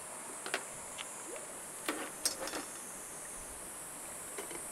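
A steady high-pitched chorus of insects, with a few short clicks and knocks, the loudest about two seconds in.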